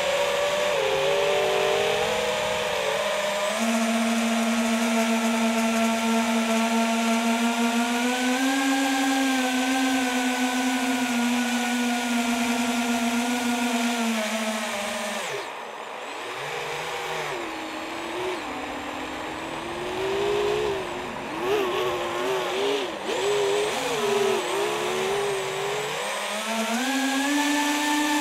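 FPV quadcopter's electric motors and propellers whining, heard from the onboard camera. The pitch holds steady through the first half, drops sharply about halfway through as the throttle is cut, then wavers up and down with throttle changes and climbs again near the end.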